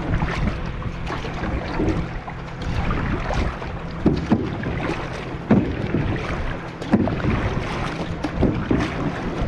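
Wind buffeting the microphone over open water from a canoe, with irregular splashes and sloshing of water against the boat.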